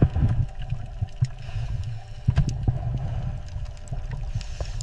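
Low rumble of a boat on open water, with water sloshing and scattered short knocks.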